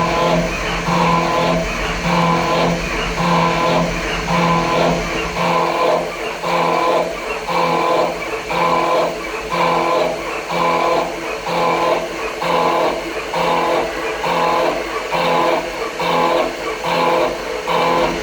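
Background music with a steady beat, about two pulses a second, with guitar-like plucked chords.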